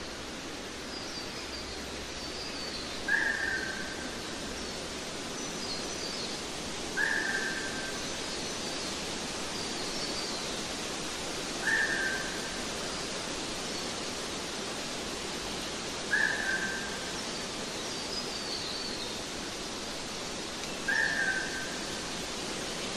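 Nature ambience: a bird whistles a short, slightly falling note five times, about every four to five seconds. Fainter high chirps from other birds sound over a steady hiss.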